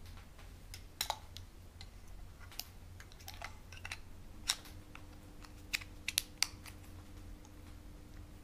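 Hard plastic clicks and taps as an action camera is handled and fitted into a plastic protective frame: irregular sharp clicks, with a quick cluster of them around six seconds in.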